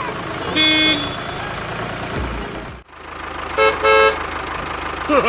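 Vehicle horn honking: one short toot about half a second in, then a quick double toot at a higher pitch later on, over a steady engine-like rumble.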